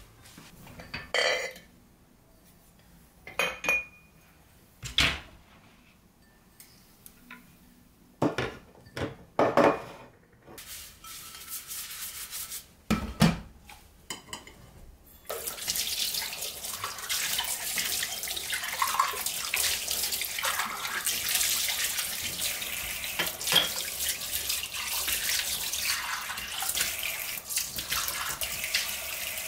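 Washing up at a stainless-steel kitchen sink: scattered knocks and clinks of dishes in the first half, then, about halfway through, the tap comes on and water runs steadily into the sink as a cup is rinsed under it.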